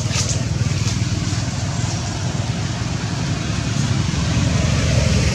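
Steady low rumbling background noise, growing a little louder near the end, with a few faint clicks near the start.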